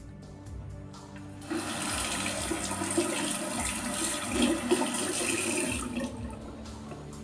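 Water running from a tap for about four and a half seconds. It starts abruptly about a second and a half in and fades out near the end.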